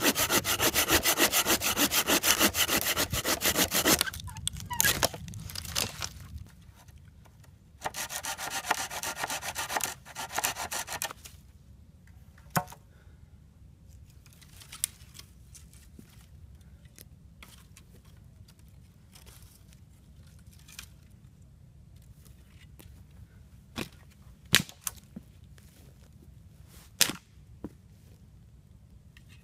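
Hand saw cutting through deadfall wood with rapid back-and-forth strokes: one spell of about four seconds, then after a pause another of about three seconds. After that come only a few scattered sharp knocks or snaps of wood.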